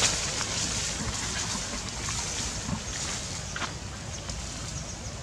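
Steady outdoor background noise, a low rumble under a hiss like wind on the microphone, with a few faint short clicks.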